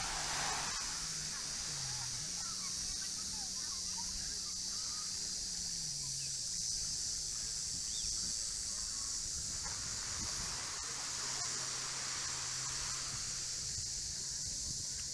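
Steady high-pitched buzzing of insects in the beach trees, with a few short bird chirps.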